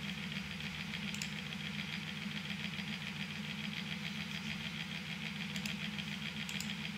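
Steady low mechanical hum from a running machine in the room, with a few faint mouse clicks about a second in and near the end.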